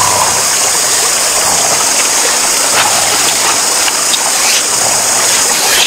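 Steady rush of flowing water, like a stream, with a few faint ticks scattered through it.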